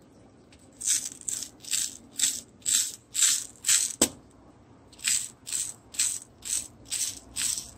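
Loose seed beads rattling in a small plastic box as a beading wire is scooped through them to pick up beads, about two scoops a second. There is a short pause with a single sharp click about four seconds in.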